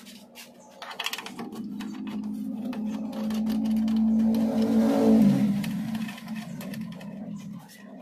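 A machine's motor hums steadily, grows louder, then is cut off about five seconds in, its pitch falling as it winds down, with clattering and clicks around it.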